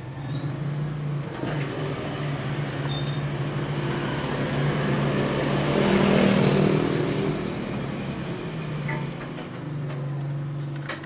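Mitsubishi electric sewing machine running on its motor with a steady hum, growing louder to a peak about six seconds in and then easing off.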